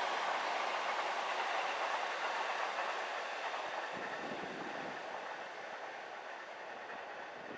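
A train running past on the tracks, its wheel-on-rail noise steadily fading as it moves away.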